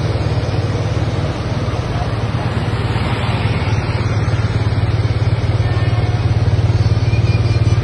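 Vehicle engine running with a steady, fast-pulsing hum, growing gradually louder toward the end as it draws near.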